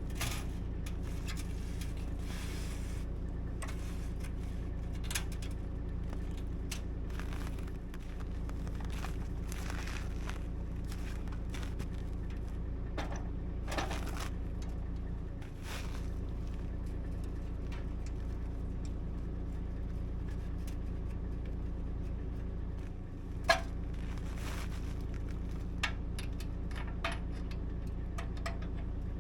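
An engine running at a steady idle, a low even hum, with scattered sharp clicks and knocks over it; the hum dips briefly twice.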